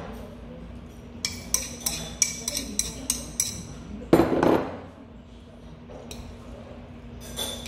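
Metal chopsticks clinking and scraping against a ceramic bowl while jjajang sauce is worked out of it onto noodles: a quick run of sharp clinks, then one louder clunk about four seconds in, then quieter mixing.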